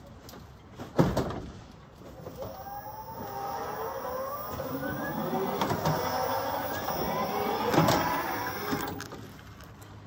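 Electric stair-climbing hand truck carrying a washing machine down steps: its motor whines with a pitch that slides up and down, crossed by a few knocks. A single sharp knock comes about a second in, before the motor starts.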